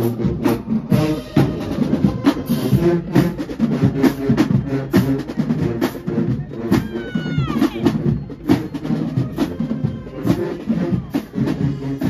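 Marching band playing as it marches, led by a pounding bass-drum and percussion beat.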